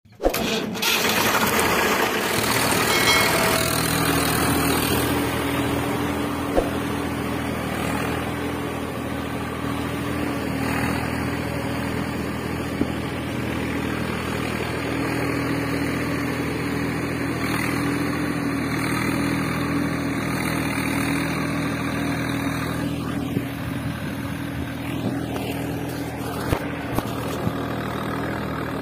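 An engine running at a steady idle, an even low hum that starts suddenly and holds unchanged, with a few light clicks now and then.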